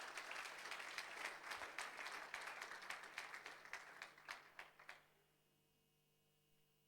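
Audience applause for a perfect five-hit series, fading out and stopping about five seconds in.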